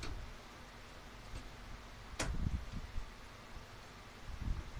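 Hands working hardware behind a plastic truck grille: a few scattered sharp clicks, the loudest a little past two seconds in, with soft low bumps and handling noise between them.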